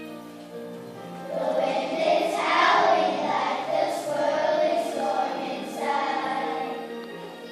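A chorus of young children singing a song with musical accompaniment. The voices come in louder a little over a second in.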